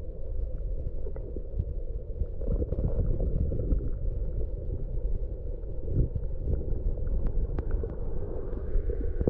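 Muffled low rushing rumble of river current heard by a camera submerged in the water, with many small scattered ticks and clicks.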